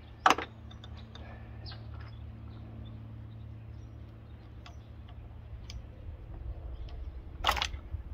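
Hands unclipping plastic connectors and fuel and injector return lines in an engine bay, with scattered light clicks and ticks. There is a sharp clack shortly after the start and a louder clatter of clacks near the end, over a steady low hum.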